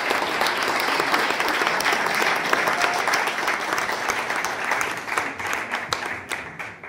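A hall full of seated guests applauding, the clapping thinning out over the last couple of seconds.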